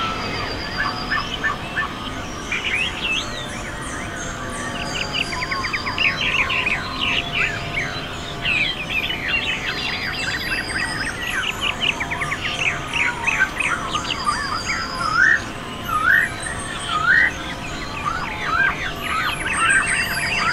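Many birds chirping and calling together, a chorus of short rising and falling notes, with a high buzzy trill recurring every few seconds over a faint steady hum.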